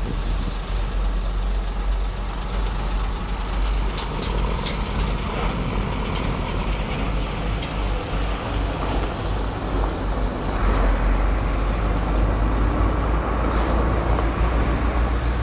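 Heavy dump truck's diesel engine running, with a few sharp clicks and clatters about four to seven seconds in. The sound grows louder from about ten seconds in.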